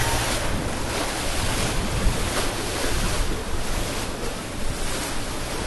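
Floodwater rushing, a steady loud roar, with wind buffeting the microphone.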